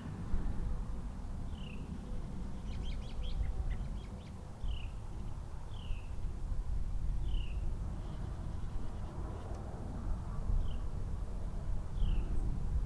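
A songbird repeating a short, high, downward-slurred call every second or two, with a brief quick burst of chips from a second bird a few seconds in, over a steady low background rumble.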